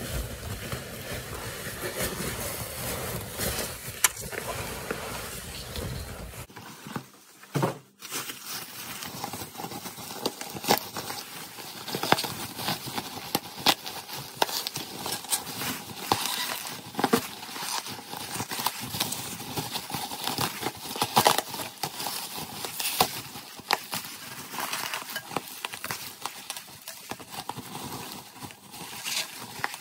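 Cardboard box being handled, rustling and scraping for the first six seconds or so. Then bubble wrap crinkles and crackles with many irregular sharp crackles as it is pulled about and unwrapped by hand.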